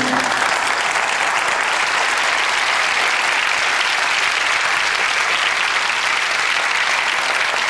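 A large seated audience applauding steadily, a dense even clapping.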